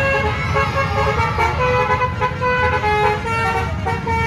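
Bus 'telolet' musical horn playing a tune of held, overlapping notes that step up and down in pitch, over a steady low rumble of engine and traffic.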